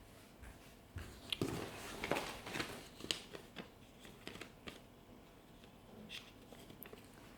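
Small hard items and their packaging being handled: a rustle with several sharp clicks and knocks about a second in, then scattered lighter clicks.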